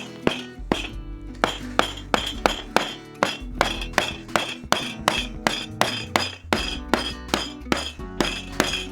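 Background music with a quick, steady beat of bright, clinking strikes over held tones.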